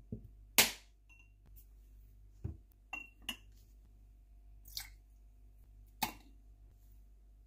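A metal teaspoon clinking against a tall glass mug: a series of short sharp clinks, some with a brief glassy ring. The loudest comes just over half a second in, and another strong one about six seconds in.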